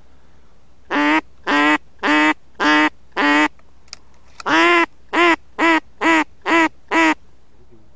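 Loud hen-mallard-style quacking: five evenly spaced quacks starting about a second in, a short pause, one longer quack, then five quicker, shorter quacks in a row.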